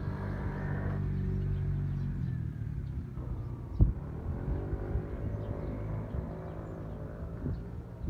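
A vehicle passing, with a low rumble and a motor whine that falls during the first second and rises again over the next few seconds. A sharp knock comes about four seconds in.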